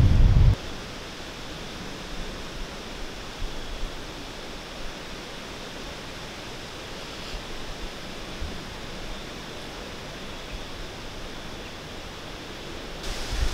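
Steady, even hiss of outdoor background noise, with a few faint soft bumps.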